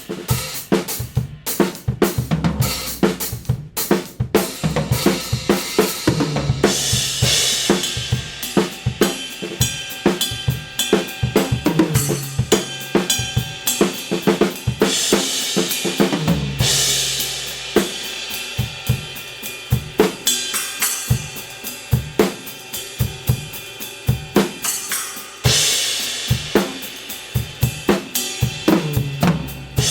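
Drum kit played in a groove with Kingdo Artist Dark B20 bronze cymbals, hi-hat and snare strokes over kick drum. Crash cymbal washes come in about a quarter of the way in, near the middle and near the end.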